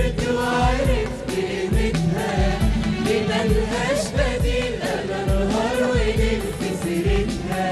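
Mixed choir singing an Arabic song in harmony, backed by electronic keyboards, violin and oud. Low thumps of about two a second give it a steady beat.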